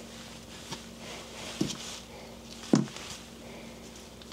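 Metal hub-motor parts being handled on a workbench: light clicks and two dull knocks about a second apart, the second the loudest, over a faint steady hum.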